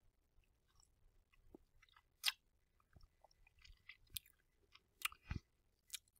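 Faint, scattered clicks and small crackles of someone eating a Quest peanut butter cup close to the microphone, with a sharper click about two seconds in and a few more near the end.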